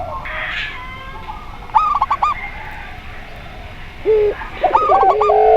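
Doves cooing: a mix of zebra dove, spotted dove and puter pelung calls. A quick run of four or five short arched coos comes about two seconds in. Lower coos follow near the end and lead into a long, drawn-out coo.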